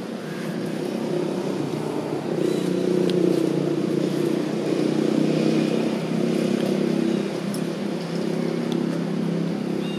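A motor engine running steadily, a low drone that swells about a second in and then holds.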